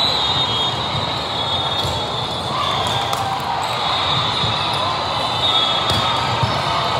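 Volleyball gym sound: a steady hubbub of voices from players and spectators, with the sharp smacks of the ball being hit a few times during a rally.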